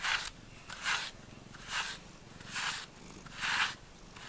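A cat purring close up, the purr swelling and fading in an even rhythm about once a second, five times.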